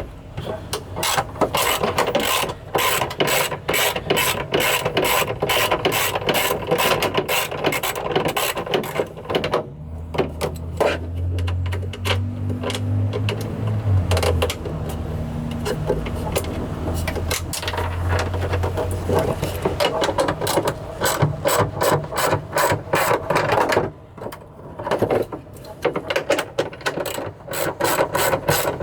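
Hand ratchet wrench clicking in quick, even runs as bolts are loosened, with a few short pauses. A low steady hum runs underneath for several seconds in the middle.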